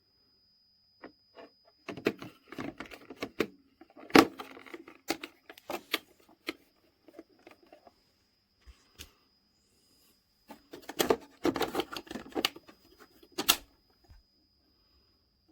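Handling noises: a series of sharp clicks and knocks with rustling, in two bouts a few seconds apart. No motor is running.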